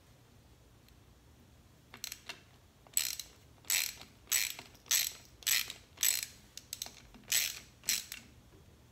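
Hand ratchet wrench tightening a screw down snug. After a quiet start it makes about ten short runs of ratchet clicks, a little over half a second apart.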